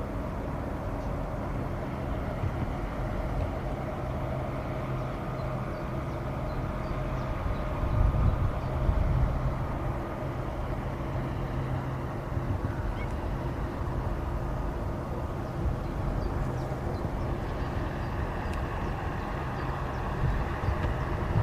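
Steady engine drone of a passing survey vessel, with a low hum and a few held tones over a rumble. Wind gusts buffet the microphone about eight seconds in and again near the end.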